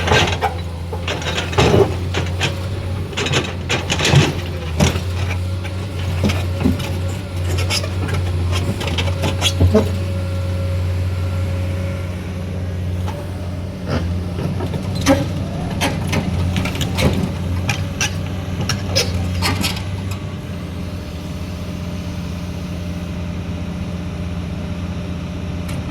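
Heavy diesel machinery, an excavator at work, running steadily, with scattered knocks and clanks over the first twenty seconds or so. After that only the steady engine is heard.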